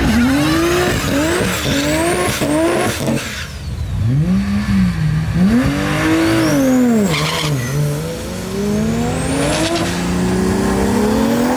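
Turbocharged Ford Barra 4.0-litre straight-six of a 2004 FPV F6 Typhoon drag car, revving hard: in the first few seconds the pitch climbs and drops several times in quick succession like rapid gear changes through its manual gearbox, then rises and falls again before a long steady climb near the end, with a high whistle rising along with it.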